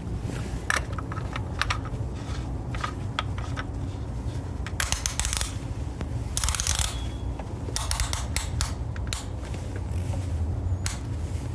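A scattered series of clicks and knocks from handling, with two longer rustling scrapes about five and six and a half seconds in, over a steady low rumble.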